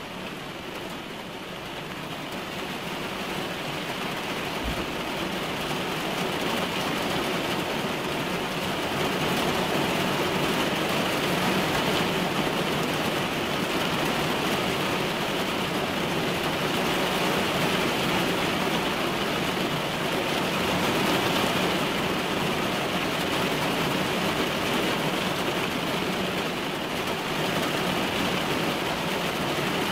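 Rain falling on a car's windshield and roof, heard from inside the car as a steady wash of noise; it grows louder over the first ten seconds or so, then holds steady.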